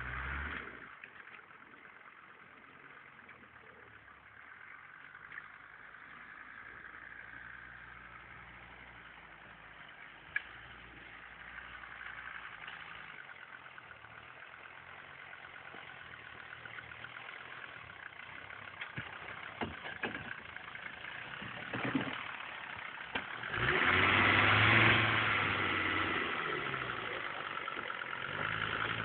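Off-road vehicle's engine running and revving unevenly as it crawls over rough forest ground, with a few sharp knocks along the way. It grows loudest a few seconds before the end as it climbs up close.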